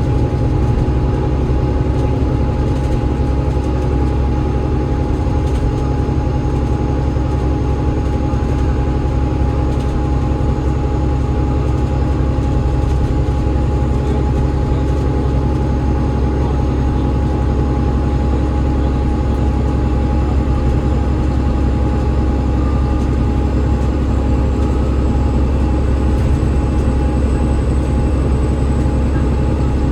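Alexander Dennis Enviro500 MMC double-decker bus, with its Cummins ISL8.9 diesel and ZF EcoLife automatic gearbox, running steadily at an even speed: a constant low rumble with a faint steady whine over it.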